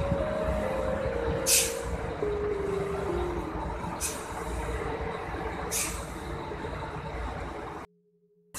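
Coach bus idling with a low rumble, its air system letting out three short, sharp hisses, about a second and a half, four and six seconds in. Over the first three seconds a short tune of stepped tones plays, and all sound cuts off abruptly just before the end.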